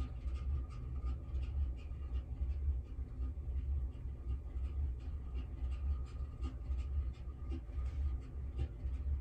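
Eyeshadow brush working powder: a run of short, soft scratchy strokes, over a steady low rumble.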